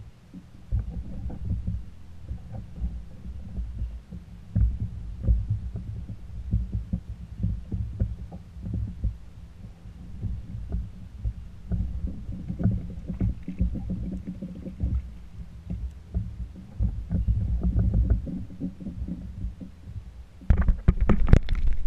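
Irregular low thuds and knocks carried through a small plastic fishing kayak's hull to the camera mounted on it, from water slapping the hull and movement in the boat. A louder rushing noise comes in the last second or so.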